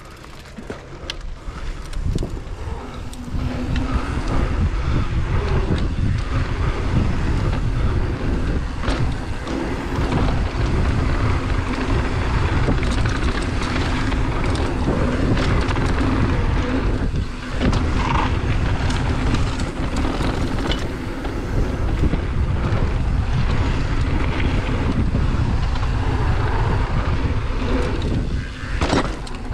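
Wind buffeting the microphone of a camera on a GT Fury downhill mountain bike riding fast down a dirt jump trail, with tyre noise on the hard-packed dirt and rattles and knocks from the bike. It builds over the first few seconds as the bike gathers speed, with a couple of brief lulls.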